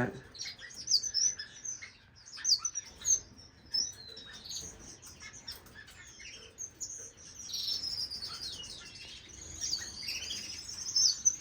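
Small finches chirping and twittering: many short, high calls overlapping, growing busier over the last few seconds.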